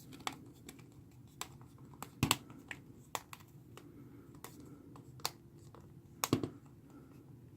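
Plastic phone frame being fitted and pressed back onto an LG K20 Plus: irregular small sharp clicks and taps, with two louder snaps about two seconds in and about six seconds in.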